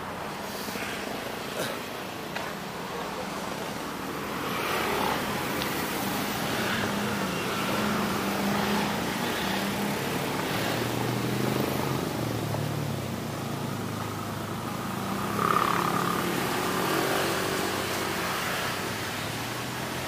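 Street traffic: car and motorbike engines passing on a road, the sound rising and falling, with one louder pass about three quarters of the way through.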